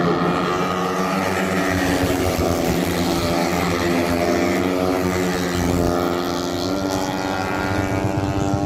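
A pack of dirt-track racing motorcycles running at high revs through a turn. Several engine notes overlap and shift in pitch as the bikes pass.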